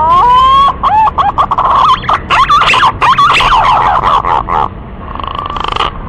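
Whistled song of a green pigeon (punai), used as a bird-lure call. Rising, stepped whistles open it, followed by a run of quick warbling notes, and it ends in a held, even whistle.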